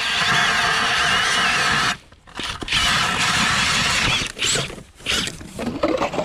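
Power ice auger drilling through lake ice. It runs steadily, stops abruptly about two seconds in, then runs again in several short bursts with a wavering squeal.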